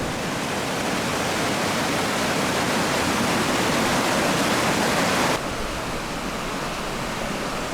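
Fast river rapids rushing steadily, swollen with spring snowmelt. The rush drops a little in level about five seconds in.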